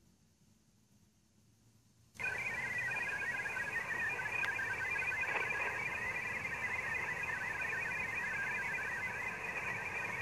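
HF amateur radio transceiver switching from transmit back to receive. Its receiver hiss comes on suddenly about two seconds in and then holds steady, a band noise through the narrow audio filter of a sideband receiver.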